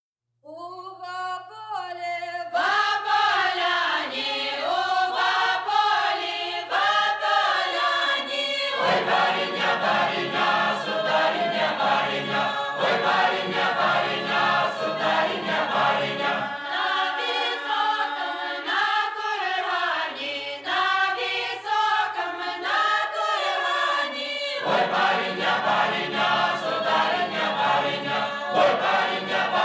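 Doukhobor choir singing a Russian wedding song in unaccompanied folk style. A single voice leads off the first line, the choir joins about two seconds in, and lower voices fill out the chord at about nine seconds, drop away around seventeen and come back near twenty-five.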